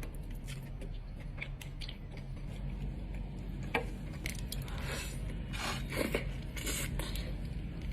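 Close-miked biting and chewing of a burrito, with scattered sharp clicks. Between about five and seven seconds in there are a few longer rustling sounds.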